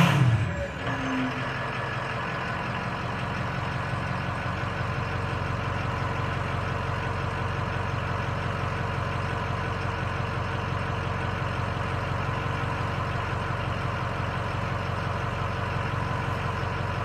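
Stock Ford 6.0 Power Stroke turbo-diesel V8 dropping back from a rev in the first second, its pitch falling, then idling steadily.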